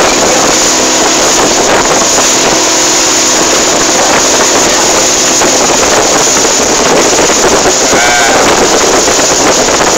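Boat engine running steadily while the boat is under way, with wind buffeting the microphone and water rushing past the hull.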